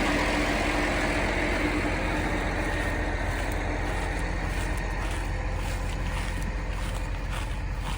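Challenger 95E tracked tractor's diesel engine running steadily, slowly getting fainter.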